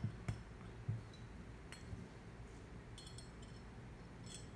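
Small steel parts of a Glock pistol slide clicking and clinking as they are handled and fitted during reassembly: a few sharp knocks in the first second, then light metallic clinks now and then, one near the end.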